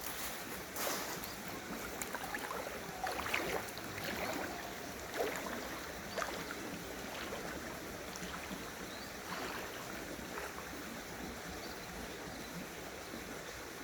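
Mountain stream water running over rocks, a steady rush with irregular splashes and gurgles, most frequent in the first half.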